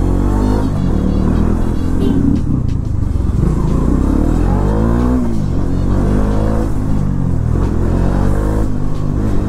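Bajaj Dominar motorcycle engine running while threading through slow traffic, its revs rising and falling several times with a steady low drone underneath.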